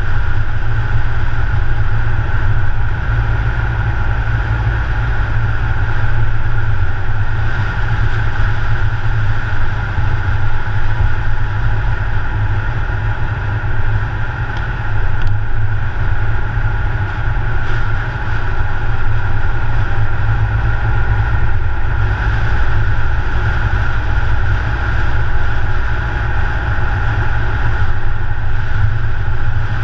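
A car driving at road speed: a steady, loud rumble of engine, tyres and wind, heard from a camera mounted on the car's bonnet.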